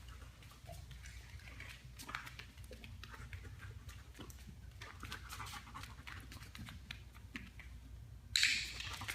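A dog panting, with scattered light clicks throughout and a short, louder noise near the end.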